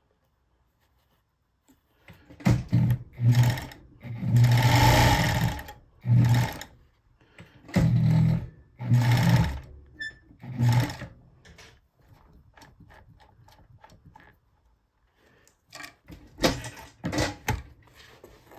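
Bonis Never Stop A-model fur sewing machine running in short bursts of a second or two with pauses between, a motor hum under a fast stitching rattle, as it sews the seam of a beaver-hide mitt.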